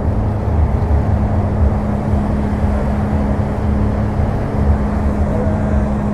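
Large cruise ship passing close, its engines and propulsion giving a steady low rumble with a steady hum.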